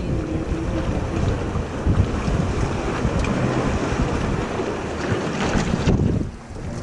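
Wind buffeting the microphone over sea water washing among shoreline rocks, a rough steady rumble that drops off sharply near the end.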